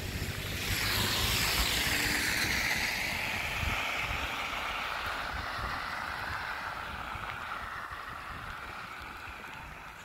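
A car passing on a wet, slushy road: tyre hiss swells about a second in, then falls in pitch and slowly fades as it drives away.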